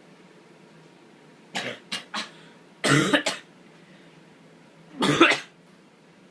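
A person straining to sneeze and failing: a few short catching breaths, then two louder, cut-off half-sneezes about two seconds apart.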